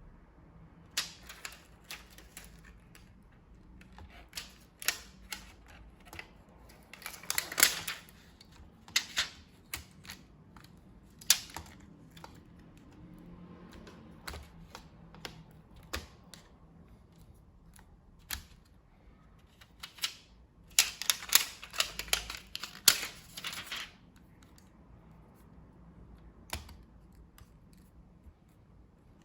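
Irregular sharp clicks and taps of small tools and laptop parts being handled on a work surface, with two busier flurries of rapid clicking.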